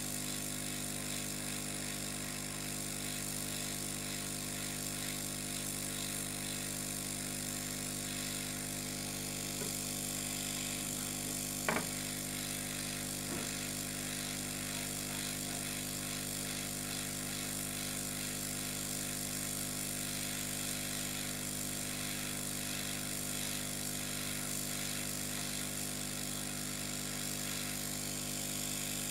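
Hot-air rework gun blowing steadily while it heats a shorted VRM MOSFET to desolder it from a motherboard, with one short click about twelve seconds in.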